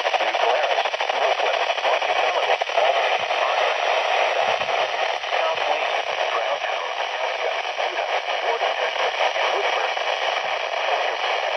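Steady hiss of static from a weather radio receiver, with no voice or alert tone on the channel.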